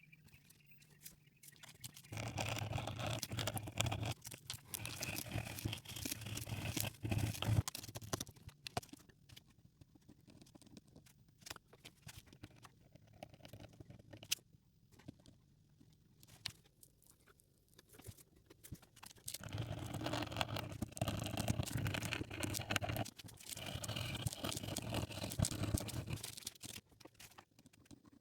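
A brush scrubbing a small hard object, most likely the bronze coin being cleaned, in two spells of about six seconds each. The first begins about two seconds in and the second about two-thirds of the way through, with light scratches and clicks between them.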